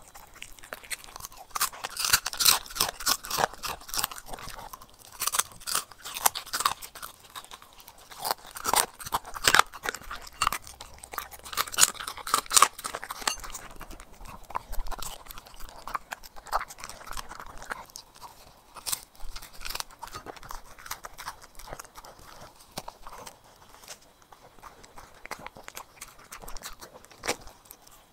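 Corgi chewing and crunching its food, a quick run of sharp crunches, thickest in the first half and sparser later.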